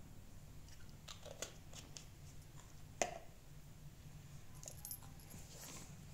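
Faint clicks and taps of a plastic syringe and small medicine bottle being handled as the dose is drawn up, with one sharper click about three seconds in.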